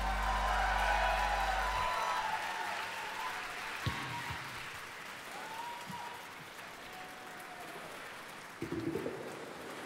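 Concert audience applauding and cheering as a song ends, the applause slowly dying down. A low held note from the band stops about two seconds in, and a short low sound comes near the end.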